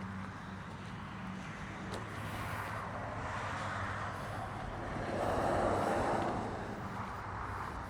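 Outdoor background of road traffic, with one vehicle passing louder about five seconds in, over a faint steady low hum.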